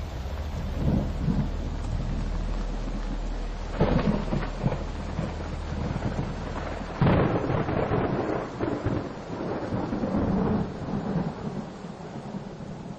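Thunderstorm: steady rain with rolling thunder, a sudden crack about four seconds in and a louder one about seven seconds in, the rumble dying away toward the end.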